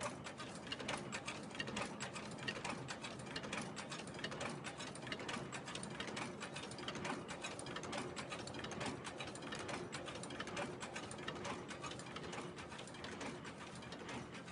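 Rasch RUEA2 Neapolitan wrapping machine running: a steady, rapid mechanical clatter of many overlapping clicks from its wrapping mechanism.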